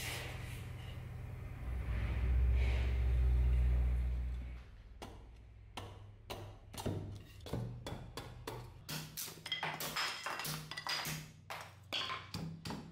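Background music with a deep drone for the first few seconds; from about five seconds in, a quick run of sharp knocks as a hand axe chops and splits thin softwood boards on a stump, over the music.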